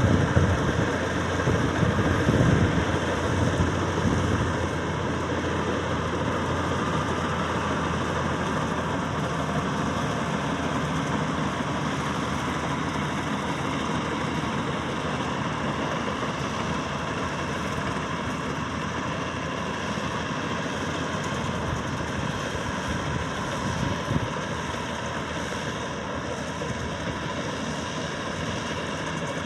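Maxxi Bimo 102 combine harvester's engine running steadily. It is loudest in the first couple of seconds and then grows slowly quieter.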